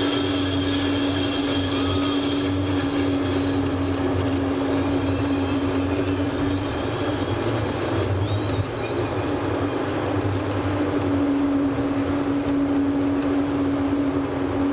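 Steady road and engine noise of a car on the move, with a constant low hum under it.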